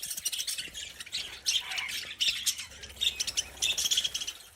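A flock of budgies chattering, with many short overlapping chirps and squawks.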